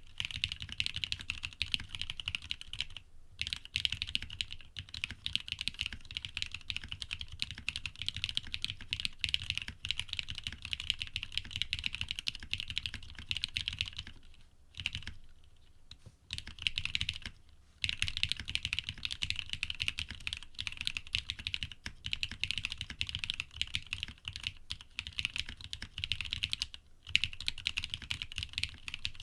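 Continuous fast typing on an Ar87 mechanical keyboard with lubed Cream linear switches, 60 g springs and an aluminium plate: a dense run of keystrokes, with short breaks and a sparser lull about halfway through.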